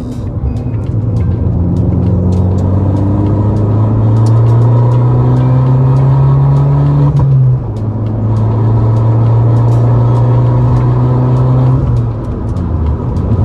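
Abarth 500's 1.4 turbo four-cylinder engine pulling under load, its note climbing slowly, then dropping abruptly about halfway through at a gear change and running steadily before the revs fall away near the end.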